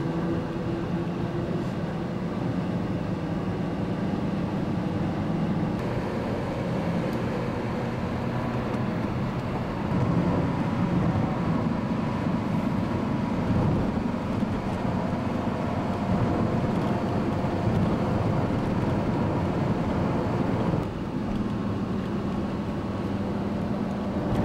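Engine and road noise heard from inside a moving road vehicle: a steady drone with a low engine hum. It grows louder about ten seconds in and drops back near the end.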